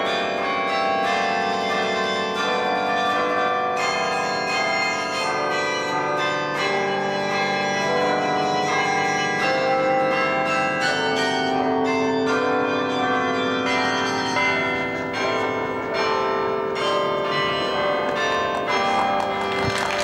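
The 49-bell carillon of St. Rombaut's tower played by hand from its baton keyboard: a melody of many tuned bells struck in quick succession, their long ringing overlapping.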